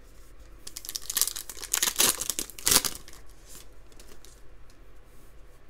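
Foil trading-card pack wrapper being torn open and crinkled, a burst of crackling lasting about two seconds starting about a second in, with quieter handling of the wrapper and cards either side.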